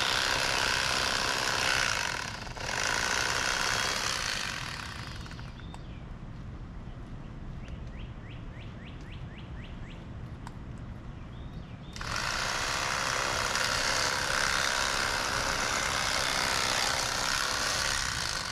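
Rapala electric fillet knife running as it cuts a fillet from a sheepshead along its heavy rib cage. It runs for about five seconds with a brief break, stops for about seven seconds, then runs again.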